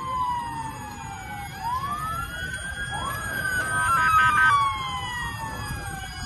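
Several emergency-vehicle sirens wailing at once, their pitches rising and falling out of step with one another, over a low steady rumble of distant city noise.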